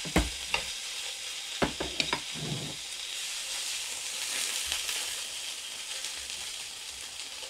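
Thick slices of marbled beef sizzling steadily in a hot frying pan on a portable gas burner, with a few sharp clicks of metal tongs against the pan in the first couple of seconds as the meat is turned.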